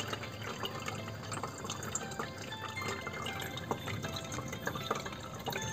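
Electric cat water fountain running: water trickling and splashing steadily from the spout into the bowl.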